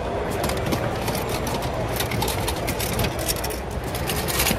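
A hand rummaging through a box of used toy train cars and bubble wrap: many short plastic and metal clicks and clinks, with crinkling wrap and bags. Under it is a steady low background rumble.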